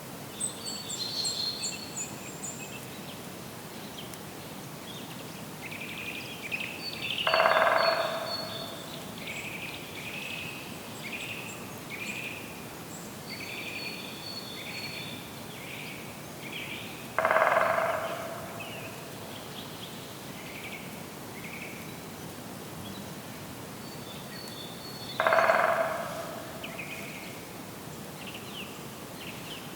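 Outdoor birdsong ambience: several small birds chirping and trilling throughout, with three louder calls from a larger bird, each about a second long and roughly ten seconds apart.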